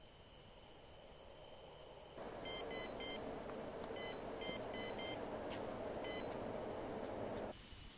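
Electronic carp-fishing bite alarm beeping in short, irregular runs of quick beeps as line is taken. Behind the beeps is a steady rushing noise that starts and stops abruptly.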